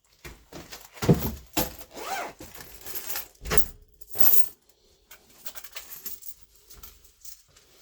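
Loose coins clinking and clattering as they are dropped into a container, several louder clatters in the first four seconds or so, then lighter scattered clinks.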